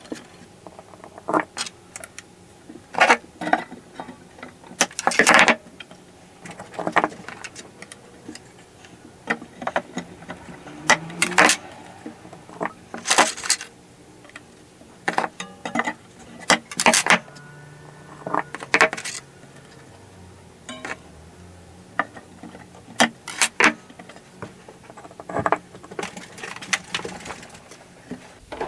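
Metal fret wire being worked into a ukulele's hardwood fretboard: irregular sharp metallic clicks and taps, some in quick clusters and some ringing briefly.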